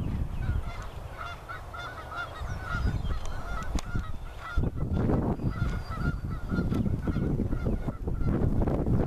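A bird's repeated honking calls, several a second, over the hoofbeats of a loping horse on soft arena dirt and a steady low rumble.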